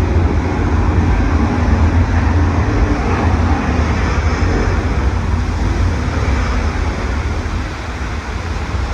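Loud, steady low rumble with a rushing noise over it, from the Studio Tour tram ride, easing slightly near the end.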